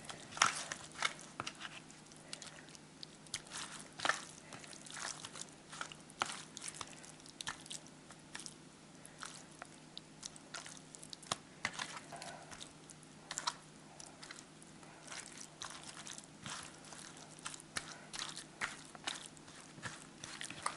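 Hands mixing pieces of raw pollock fillet with starch in a plastic bowl: soft, irregular wet squelches and clicks as the sticky fish pieces are turned over and pressed together.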